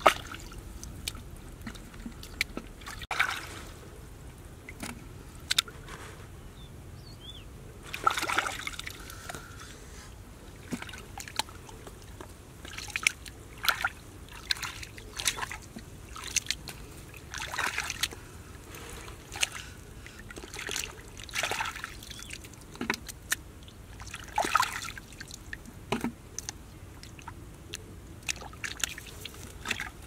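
Hands sloshing and splashing in shallow muddy water while groping in the mud for fish: irregular short splashes, some longer and louder.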